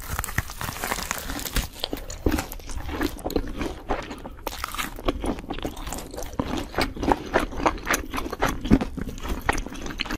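A person eating crunchy food: a quick, irregular run of crisp bites and chewing crunches.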